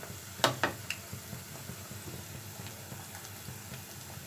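Besan pakoras frying in hot oil with a steady faint sizzle. A spoon knocks against the pan three times in quick succession within the first second as they are stirred.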